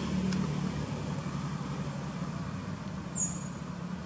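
Steady low hum of an engine running. A brief high chirp comes about three seconds in.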